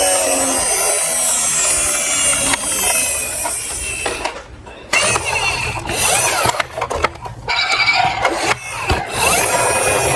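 Toy cars rattling and clattering down a plastic slope track, with short pauses about four and a half, seven and nine seconds in. Falling gliding tones run under it in the first two seconds.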